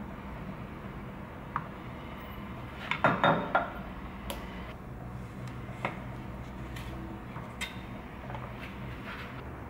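Tableware being handled and set down on a wooden tray and countertop: a short cluster of knocks and clinks about three seconds in, then a few single light clicks.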